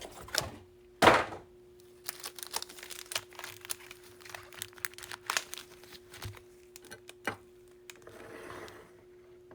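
Foil baseball-card packs being handled on a table: crinkling wrappers and light taps, with a louder thunk about a second in and a longer rustle near the end.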